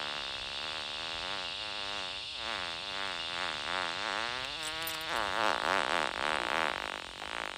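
A long fart with a wavering pitch that turns rougher and a little louder about five seconds in.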